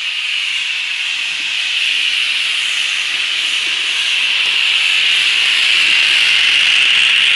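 Steady hiss of steam escaping from a narrow-gauge steam locomotive as it draws slowly past, growing louder toward the end.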